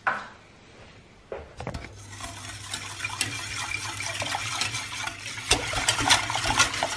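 Whisk stirring a milk mixture in a pot, with rapid clicking and scraping against the pot that grows louder over the last few seconds. A steady low hum runs underneath from about two seconds in.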